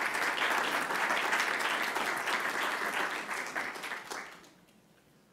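Audience applauding in welcome, the clapping dying away about four seconds in.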